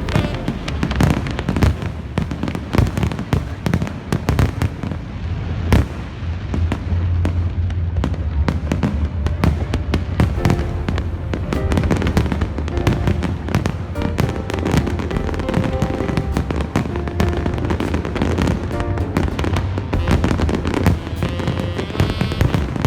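Aerial fireworks going off in a dense, continuous barrage of bangs, booms and crackles, with a heavy low rumble around six to ten seconds in, over the show's accompanying music, whose sustained notes come through more clearly from about halfway.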